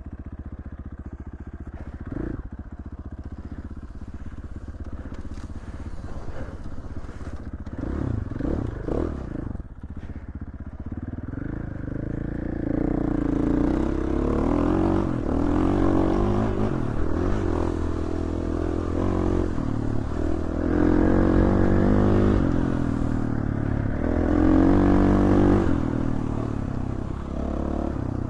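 Dirt bike engine running while being ridden, its revs rising and falling with the throttle. It gets louder about halfway through, with repeated surges.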